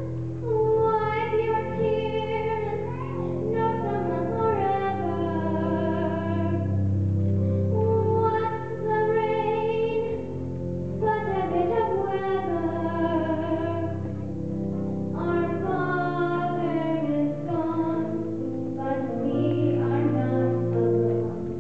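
A young girl singing a slow song into a handheld microphone, her voice gliding between held notes, over a piano accompaniment with long sustained low notes.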